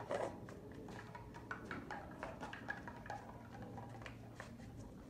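Irregular pattering and scuffing of a person's sandalled footsteps and a German Shepherd's paws on wet paving stones during rough play, with a brief louder sound right at the start.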